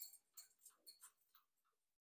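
Budgerigars husking millet seeds from a millet spray with their beaks: a run of soft, quick clicks, about three or four a second.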